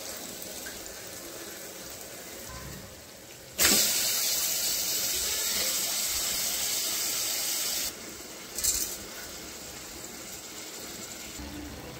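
Hot oil and onion-tomato masala sizzling in an aluminium pressure cooker. About three and a half seconds in it turns abruptly to a loud steady hiss as raw chicken pieces go into the hot pan, cuts off suddenly near eight seconds, and a short burst of hiss follows about a second later.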